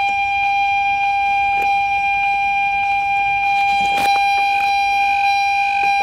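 A steady, high electronic buzzer tone holding one unchanging pitch, like a warning buzzer. About four seconds in come a few small clicks and rustles as a plastic wiring connector is handled and pushed back into place.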